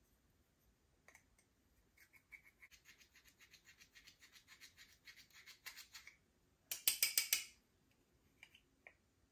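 Slime being stirred and scraped while makeup is mixed in: a run of quick, even rubbing strokes, about six a second, for several seconds, then a short burst of louder strokes about seven seconds in.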